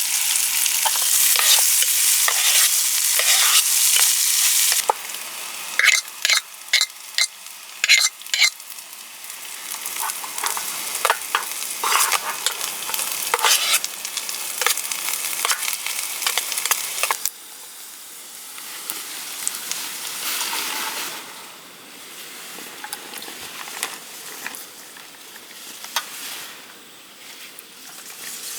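Food sizzling as it fries in a pan and is stirred, with a quick run of sharp taps of a utensil against the pan a few seconds in. Past the middle the sizzle drops to a quieter hiss.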